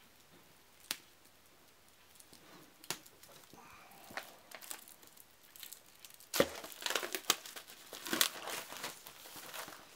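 Plastic wrapping being handled and torn open around cardboard game tile sheets: a couple of lone clicks in the first three seconds, then a dense run of crinkling and rustling from about six seconds in.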